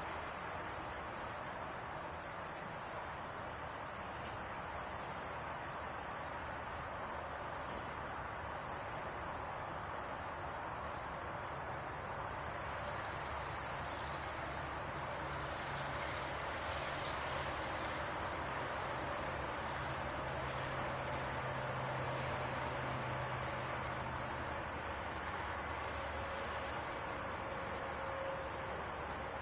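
Steady, unbroken high-pitched chorus of crickets and other insects in late-summer woods.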